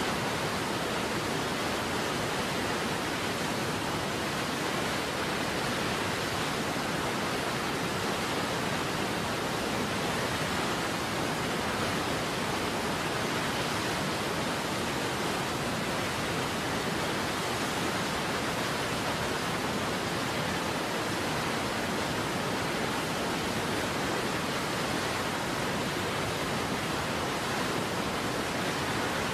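Steady, unchanging rush of falling water from a waterfall, an even hiss-like noise with no breaks or changes in level.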